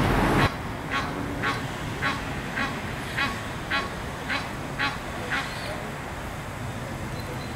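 A goose honking in a run of nine short, evenly spaced calls, about two a second, then stopping. A brief rush of wind noise at the very start.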